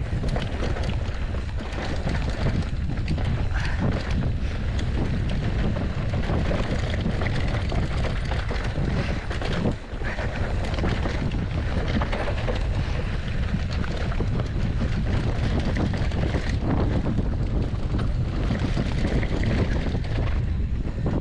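Wind buffeting the microphone of a mountain biker's ride camera on a descent, a steady low rumble with frequent knocks and rattles from the bike and tyres over rough trail, dropping off briefly about ten seconds in.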